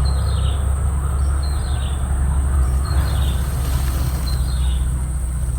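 A bird giving a short falling call about every second and a half, four times, over a steady low rumble and a faint constant high-pitched hum.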